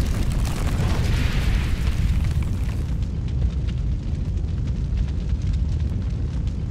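Intro sound effects for a lava logo reveal: a deep, continuous rumble of eruption and fire, with a rushing hiss over the first three seconds or so, then fine crackling like burning embers.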